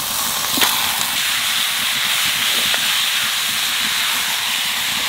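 Raw chicken pieces sizzling as they drop into hot ghee in a metal pot, a loud steady hiss of frying, with a couple of faint knocks of the spatula or meat against the pot.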